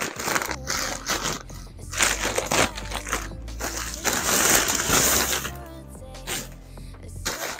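Plastic mailer bag and plastic clothing packets crinkling and rustling as they are handled and pulled out, in irregular spells, over soft background music.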